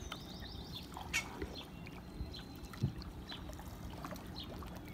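Water trickling and lapping around a small boat gliding along a canal, with scattered short high chirps and a single knock about three seconds in.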